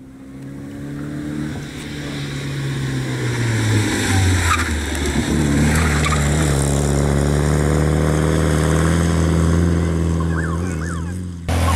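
Škoda 105 rally car engine running hard at steady high revs, with short tyre squeals a few times as it corners. The engine note shifts about four seconds in and then holds steady, and the sound jumps abruptly louder near the end.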